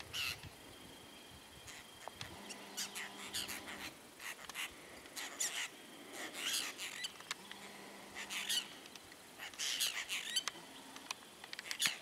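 Apostle birds calling: short, rasping calls in clusters every second or two, with scattered faint clicks between them.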